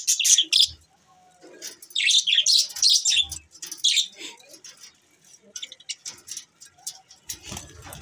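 A flock of budgerigars chattering in an aviary: many short, high chirps overlapping in bursts, densest from about two to four seconds in, then thinning to scattered chirps.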